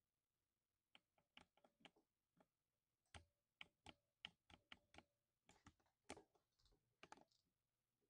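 Typing on a 60% mechanical keyboard with lubed silver linear switches: faint, irregular keystrokes that start about a second in and stop near the end.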